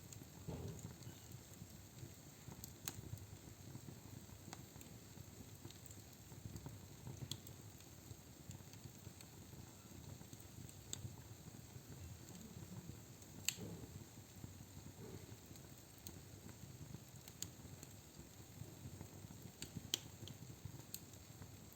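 Wood logs burning in a fireplace: a low, steady rush of flames with sharp crackles and pops every few seconds, two of them louder, about midway and near the end.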